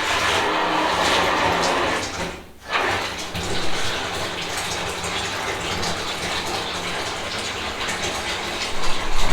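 Water running steadily, as from a tap, with a brief break about two and a half seconds in before it starts again.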